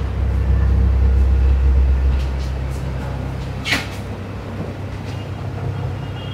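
A low, steady engine rumble, louder for the first two seconds and then settling, with one short sharp sound a little past halfway.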